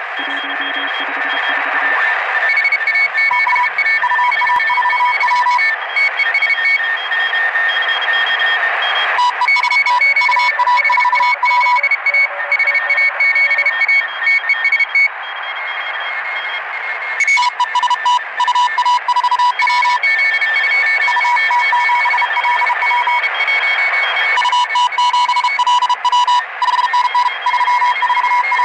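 Grundig Yacht Boy 500 shortwave receiver in upper-sideband mode on 7009 kHz, playing several keyed signals at once: on-off beeps at different pitches, which the uploader takes for Morse code. The beeps sit over a hiss of band noise that swells and fades.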